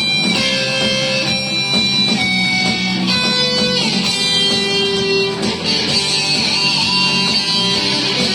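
Guitars playing an instrumental break of a song: a melody of held notes that change about once a second over steady strummed accompaniment.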